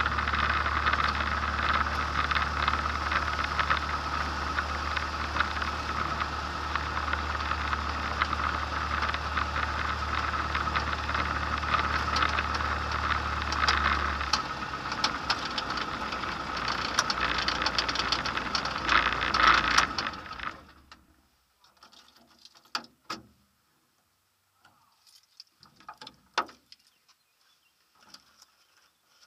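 Microlight aircraft's propeller engine running steadily at idle on the ground, then switched off about twenty seconds in; the sound cuts away quickly as the propeller runs down to a stop. A few faint clicks and knocks follow.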